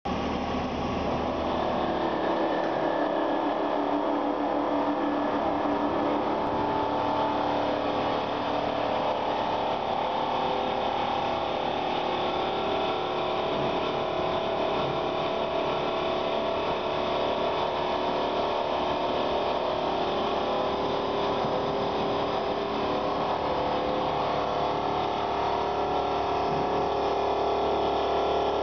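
Automatic pot-polishing machine running: electric motors spin an aluminium pot while a buffing wheel grinds against its surface, giving a steady mechanical whir with several unchanging tones.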